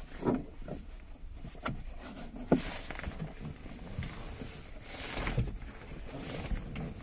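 Handling noises from car interior trim: scattered light clicks and knocks with a few brief rubbing sounds as the rubber door seal and plastic trim are pressed into place.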